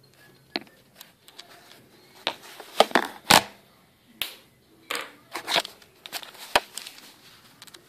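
Phone handling and rummaging noise: an irregular string of sharp clicks and knocks, with a cluster of the loudest knocks about three seconds in.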